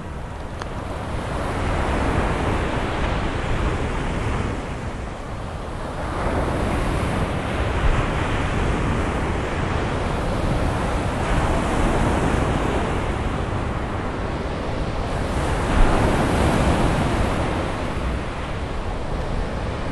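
Sea waves washing ashore, the noise swelling and falling back every four or five seconds, with some wind on the microphone.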